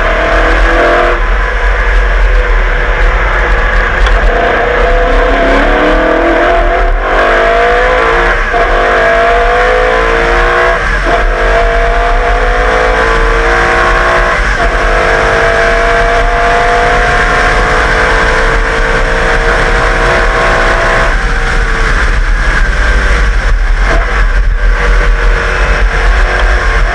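The 1989 Walkinshaw Group A Holden VL Commodore's V8 racing engine is accelerating hard at speed, its pitch climbing through the gears with shifts about one and seven seconds in. It then pulls in one long, slowly rising run before easing off about three quarters of the way through. A constant heavy low rumble runs underneath.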